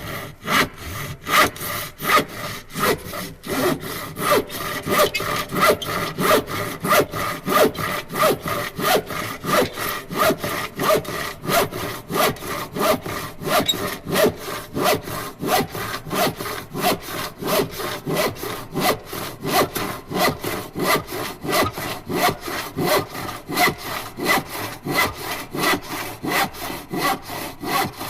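Steady back-and-forth rasping strokes, about two to three a second, in an even rhythm.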